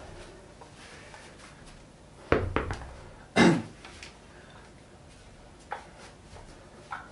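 Metal dumbbells being picked up and handled, giving a few sharp knocks and clanks, the loudest a little after two seconds and at about three and a half seconds, then a couple of light clicks.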